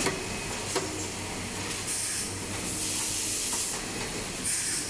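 Automatic cap strap sewing machines running: a steady machine hum, a few sharp clicks and repeated bursts of compressed-air hiss.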